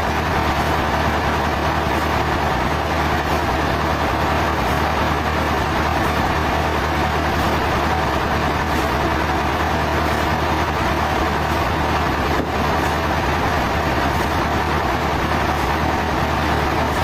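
Heavy engine running steadily at one speed, with a constant deep hum and no change in pitch or load.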